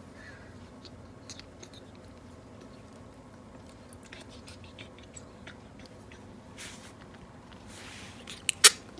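Ferret sneezing in a repeated fit: two short, sharp sneezes in quick succession near the end, just after a brief rushing breath. Before them there are only faint small clicks and rustles.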